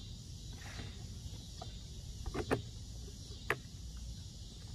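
Mailbox door and a package being handled: a few faint clicks and knocks, the sharpest about two and a half and three and a half seconds in, over a steady high hiss.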